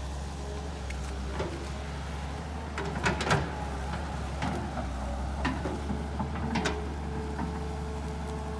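Kobelco SK200 excavator's diesel engine running steadily, with sharp metallic knocks and clanks, a cluster about three seconds in and a few single ones later.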